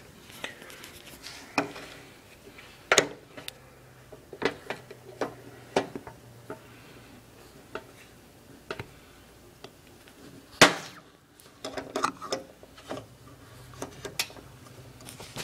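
The hook-type can-opener blade of a US military camp knife cutting around the rim of a tin can: a string of irregular metal clicks and crunches, the loudest about ten and a half seconds in.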